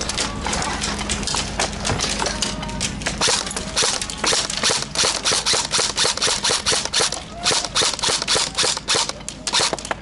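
Airsoft electric guns firing in bursts: a fast rattle of sharp clicks that keeps going with short pauses.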